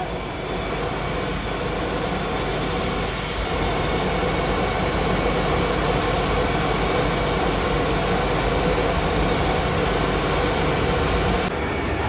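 Gas preheating burner on a rotary-drum carbonization furnace running: a steady rushing noise with a faint hum, slightly quieter near the end.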